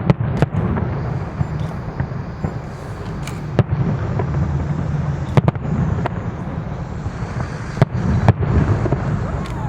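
Fireworks display: a continuous low rumble of shell bursts, punctuated by about nine sharp, loud cracks at irregular intervals of one to two seconds.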